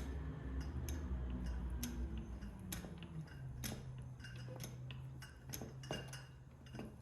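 Grease gun being pumped into a tie rod end's grease fitting, giving irregular small metallic clicks, over a low steady hum that drops in pitch about three seconds in. The joint is filling until grease pushes out past the rubber boot.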